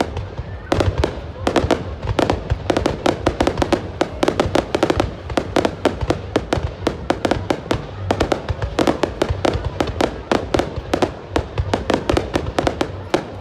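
Fireworks going off in a rapid, continuous string of sharp bangs and crackles over a low rumble.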